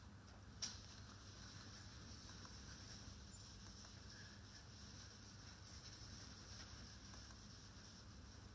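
A whiteboard eraser being rubbed back and forth across a whiteboard. A light tap under a second in, then high-pitched squeaks with each stroke, two or three a second, in two runs.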